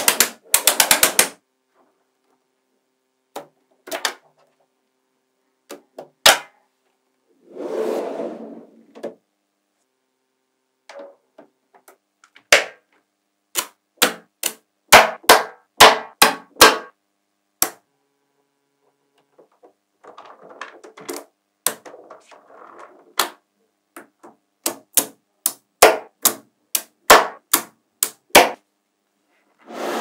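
Small magnetic balls clicking sharply as strips and blocks of them are snapped together, in irregular clusters with short quiet gaps. A longer, softer clatter comes about 8 seconds in and again a little after the 20-second mark.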